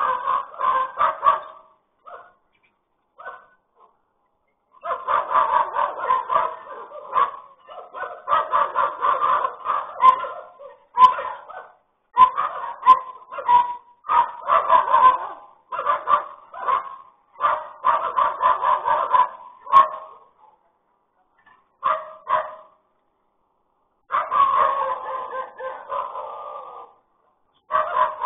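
Repeated animal calls in rapid runs lasting a second or more, with short gaps between them.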